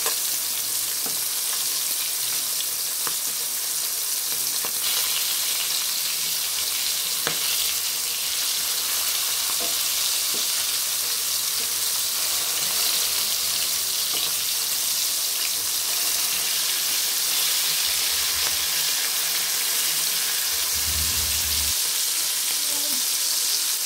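Marinated fish steaks shallow-frying in hot oil in a wide kadai, a steady high sizzle, with a few light clicks of a steel spoon as the pieces are turned.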